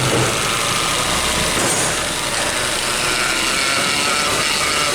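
Hyundai Veloster's six-speed automatic transmission running in gear with the engine on, making a steady noise like a mewing kitten. The pump is drawing air in with the oil, a sign the mechanic puts down to a clogged transmission filter.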